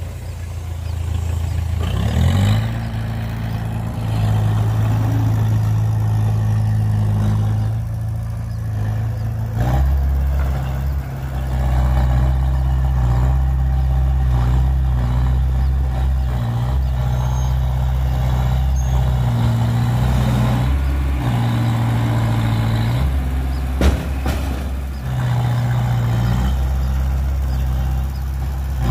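Diesel engines of a Hyundai 5-ton tipper dump truck and a small Komatsu D20A crawler bulldozer running together while the truck dumps soil from its raised bed and pulls forward. The engine note steps up and down several times, and there is a single sharp knock late on.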